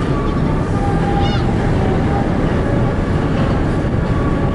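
Steady low rumble of wind on the microphone on the deck of a car ferry under way, over the hum of the ship's engines. A brief high bird call cuts through about a second in.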